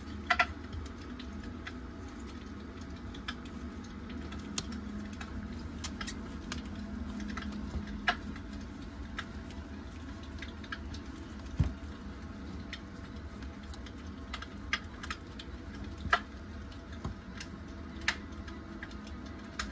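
Soft squishing of fabric being twisted into a spiral with a metal hemostat, with scattered small clicks and taps as the forceps meet the glass tabletop. A steady low hum runs underneath.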